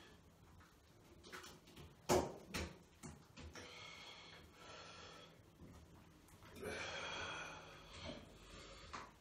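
Wet, squelching sounds of thick cake batter and Angel Delight being smeared by hand over the body, with a couple of sharp wet slaps about two seconds in, and breathing in between.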